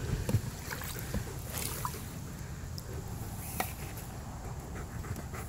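Light splashing and sloshing of pool water as a dog paws at it, with a few faint ticks.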